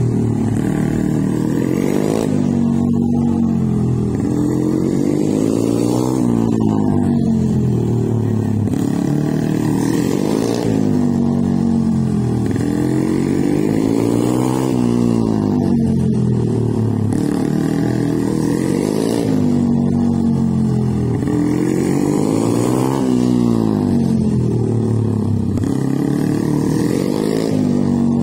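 Mini GP minibike engine revving up and dropping back again and again every few seconds as the bike accelerates out of and slows into tight corners.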